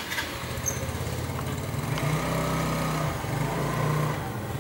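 An engine running steadily, its pitch stepping up a little about two seconds in.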